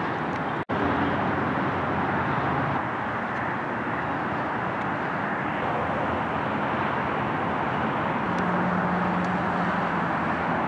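Steady outdoor ambience: an even hiss, with a faint engine hum near the end. The sound cuts out for an instant less than a second in.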